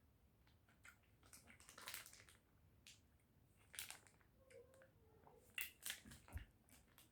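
Near silence, broken by a few faint, short crunching and crackling sounds as a person chews soft lollies.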